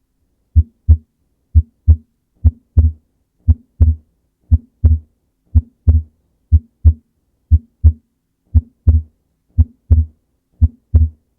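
Heart sounds at about one beat a second, each beat a lub-dub of two short low thumps: S1 from the mitral and tricuspid valves closing, then S2 from the aortic and pulmonary valves closing. On some beats the second sound comes as two close thumps. This is physiological splitting of S2, where the pulmonary valve closes just after the aortic valve, exaggerated during inspiration.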